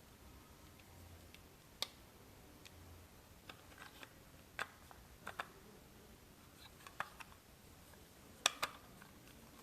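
A few sharp, small clicks and taps, scattered about seven times over several seconds with the loudest pair near the end: small parts and tools being handled during hand work.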